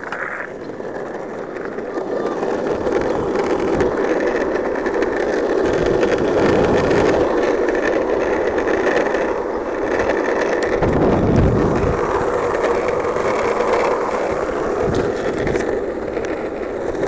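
Longboard wheels rolling fast on asphalt downhill: a steady, loud rolling roar that builds over the first few seconds as the board picks up speed, then holds. Low gusts of wind buffet the microphone about six and eleven seconds in.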